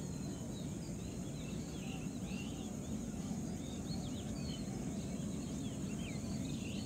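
Birds chirping with many short, quick calls scattered through a steady low background noise of rural outdoor ambience.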